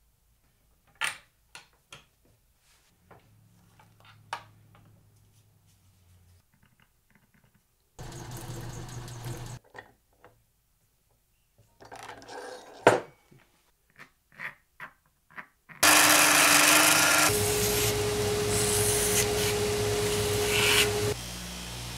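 Bench work on Kydex: scattered sharp clicks and taps, a brief burst of noise, then a run of clicks from an eyelet press setting eyelets in the Kydex. Near the end a belt grinder runs steadily with a held tone for about five seconds as the sheath's edge is ground.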